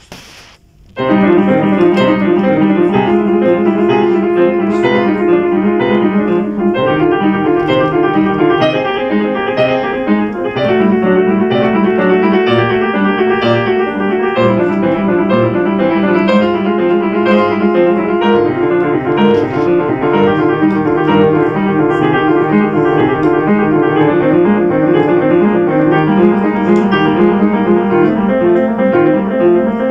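Grand piano, a Steinway, played solo in a continuous run of notes that begins about a second in, right after a brief click.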